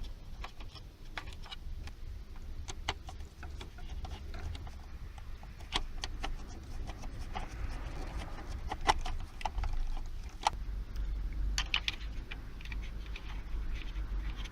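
Scattered small clicks and taps of plastic car interior trim being handled and screwed back into place, over a low rumble.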